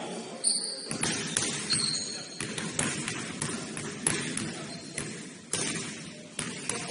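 A basketball bouncing on a gym floor during play: irregular sharp thuds, with short high sneaker squeaks near the start and a low background murmur of the hall.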